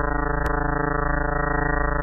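Steady low drone with a fast flutter and a dense stack of even tones up to a mid pitch: a space sonification presented as the sound of a body in Jupiter's system. One sharp click about half a second in.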